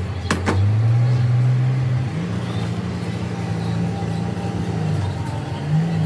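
An engine running, its pitch stepping up and down several times, with a sharp metallic clink about half a second in.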